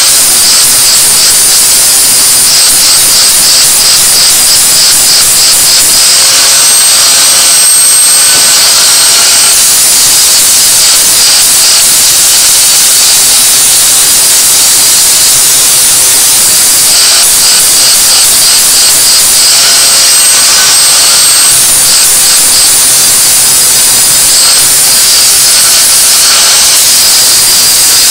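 Handheld angle grinder grinding metal: a loud, steady grinding hiss, with a thin high whine that comes and goes.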